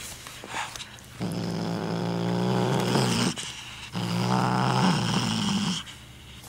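Savannah cat growling while guarding a feather toy: two long, low growls of about two seconds each, the second starting about four seconds in.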